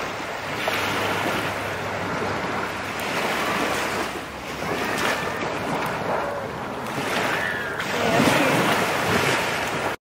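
Small waves washing onto a sandy shore, with wind buffeting the microphone. The wash swells louder about two seconds before the end.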